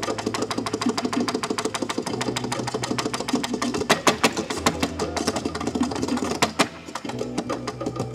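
Tap shoes striking a small tap board in a rapid, unbroken stream of taps, with a few louder accents about four seconds and six and a half seconds in.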